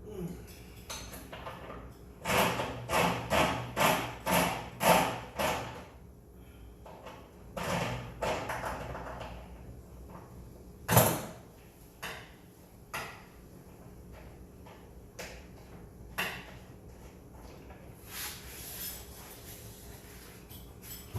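A heavy steel water heater being worked out of its place: a quick run of about six scraping knocks, a few more a couple of seconds later, then one sharp bang, with scattered smaller clicks and taps.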